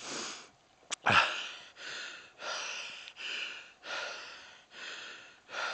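A man breathing hard from exertion: quick, heavy, rasping breaths in a steady rhythm. About a second in there is a short click and a brief falling vocal sound.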